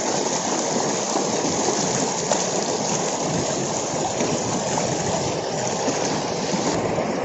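Waterfall's falling water rushing with a loud, steady noise that starts suddenly.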